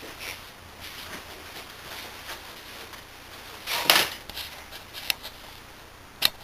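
Workshop handling noise: faint rustling, a short scrape about four seconds in, and a few sharp clicks near the end.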